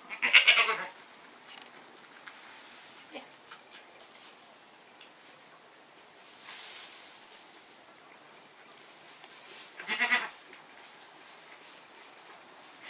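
Goat bleating twice: a wavering call right at the start and another about ten seconds in.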